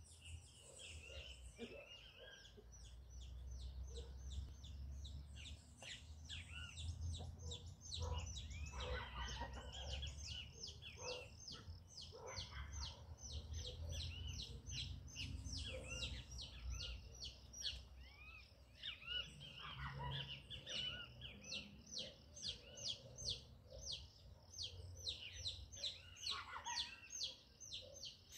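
Wild birds chirping: rapid high, falling chirps repeated several times a second, with a few lower calls mixed in, over a low rumble.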